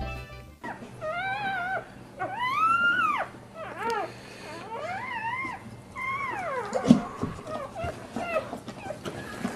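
Newborn pit bull puppies whining in a run of high cries, each rising then falling in pitch, the longest about two seconds in. A short thump comes about seven seconds in.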